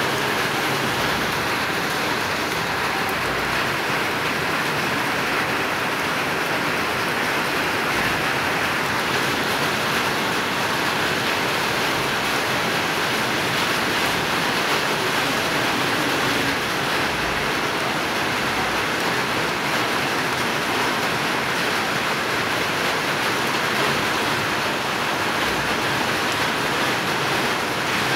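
Light rain falling steadily, a continuous even hiss.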